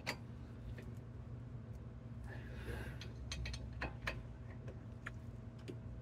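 Scattered metallic clicks and ticks of hand tools working on a Jeep Patriot's front brake caliper, coming at uneven intervals with a brief rustle of handling partway through. A steady low hum sits underneath.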